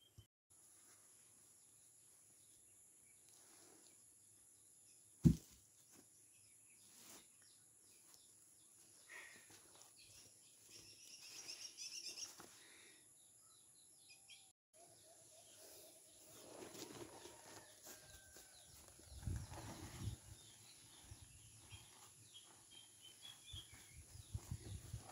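Quiet outdoor ambience with faint bird chirps. A single sharp click about five seconds in is the loudest sound, and there are a few low thumps near the end.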